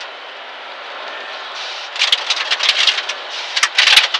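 Steady engine and road noise inside the cabin of a Dodge Neon SRT-4 rally car at speed on a snowy gravel road. About halfway through, a rapid clatter of sharp knocks and cracks sets in and grows loudest near the end.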